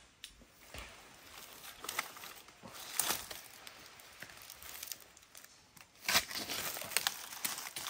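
Hammock fabric and cord rustling and scraping in irregular bursts as the hammock is tied up, with louder rustles about three seconds and six seconds in.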